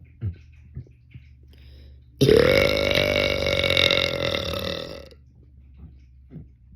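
A man's single long, loud burp lasting about three seconds. It starts suddenly about two seconds in, holds a steady pitch and tails off near its end.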